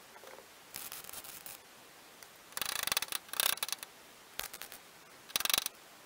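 MIG welding arc stitch-welding a steel repair panel onto a car's lower rear wing: about five short crackling bursts, each under a second, with brief pauses between them.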